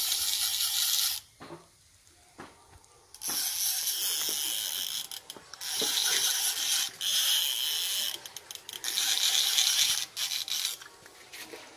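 Fishing reel being wound to bring in the line, its ratchet clicking rapidly in four spells of one to two seconds with short pauses between.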